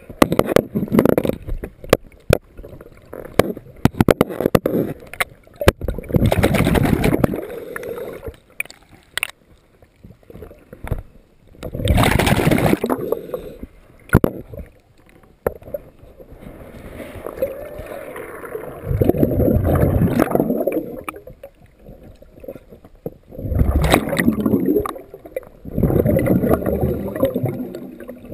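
Scuba regulator breathing underwater: the diver's exhaled bubbles gurgle past in bursts of one to two seconds every few seconds, with scattered sharp clicks between breaths.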